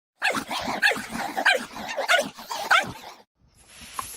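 A dog barking and whining in a quick run of calls, which cut off abruptly about three seconds in.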